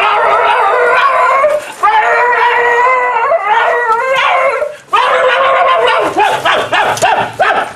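A man howling and wailing in long, high cries with the pitch sliding up and down. The cries break off briefly twice, and near the end they turn into a run of shorter yelps.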